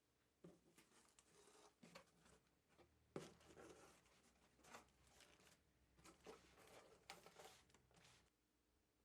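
Faint rustling and light clicks of something being handled, stopping about eight seconds in.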